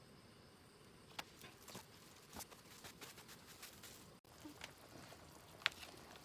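Quiet outdoor background with a few scattered light clicks and taps, the loudest near the end.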